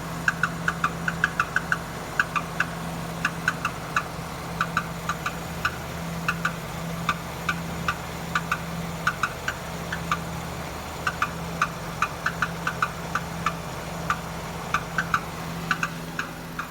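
Renault Duster's 2.0 F4R petrol engine idling warm with its DP8 automatic gearbox, over which come irregular sharp metallic ticks and knocks from underneath around the gearbox, a few a second. The noise shows only once the engine is warm and fades with a little throttle; the owner suspects the flywheel (flex plate).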